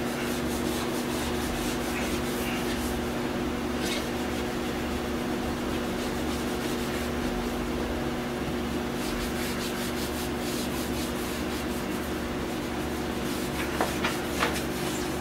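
Wet abrasive scuff pad rubbed by hand back and forth over the painted fiberglass of a truck cap, dulling the paint to prep it for new paint. A steady low hum runs underneath.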